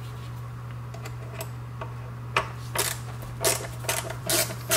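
Phillips screwdriver turning out screws from a plastic wing-mirror base, with a series of sharp, irregular clicks from about halfway in. A steady low hum runs underneath.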